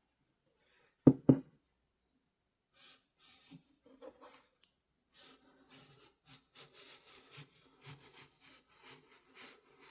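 Two loud knocks about a second in, then hand sewing on quilted fabric: a needle and thread drawn through the cloth in soft rubbing strokes, about two a second, as running stitches are made.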